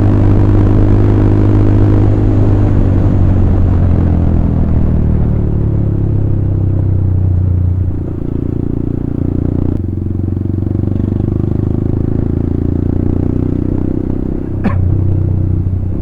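Royal Enfield Classic 350 single-cylinder motorcycle engine running steadily while riding. The engine note drops a little about eight seconds in, and a short sharp sound cuts through near the end.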